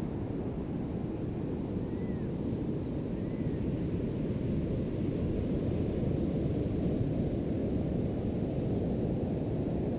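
Ocean surf on a beach as a steady low rush of waves, with wind on the microphone; the surf swells a little about halfway through.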